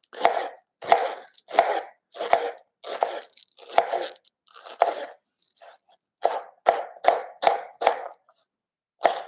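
Chef's knife slicing a peeled yellow onion into thin slices on a plastic cutting board: a steady series of crunchy cuts, one to two a second, with a short pause about halfway.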